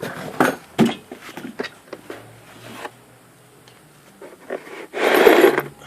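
Dismantled motorcycle engine parts being handled: a run of clicks and clinks, then a rustling scrape lasting about a second near the end.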